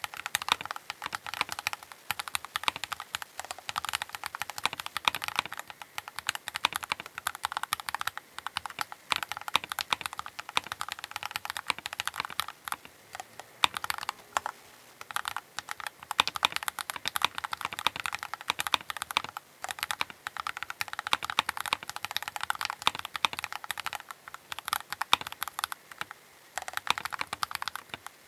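Keychron K8 Pro mechanical keyboard being typed on at a steady, fast pace: a dense run of key clicks and bottom-outs, with short pauses about halfway through and again near the end.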